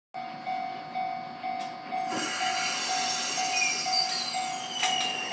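Level-crossing warning bell dinging evenly about twice a second as a Chikuho Electric Railway 3000-series articulated tram rolls past. From about two seconds in, the tram's running noise rises, with high wheel squeal falling slowly in pitch and one sharp clack near the end.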